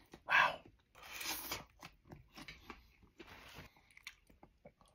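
A person slurping bucatini noodles and chewing: one loud short slurp about a third of a second in, a longer airy slurp around a second in, then small wet chewing clicks.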